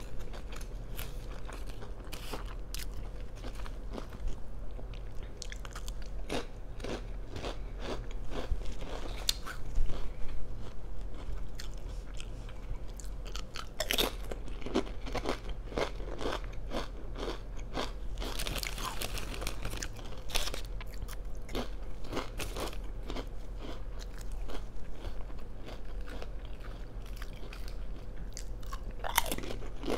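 Close-miked biting and chewing of a cold sub sandwich stuffed with crunchy potato chips, with many irregular crisp crunches and wet chewing throughout.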